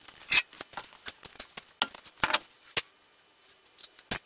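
Wheel bolts and hand tools clinking as they are handled: a run of sharp metallic clicks at uneven intervals, the loudest about half a second in, just under three seconds in and near the end.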